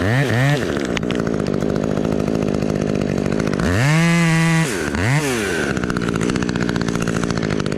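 Chainsaw idling, revved up briefly twice near the start, held at a higher rev for about a second around four seconds in, then blipped once more before settling back to idle.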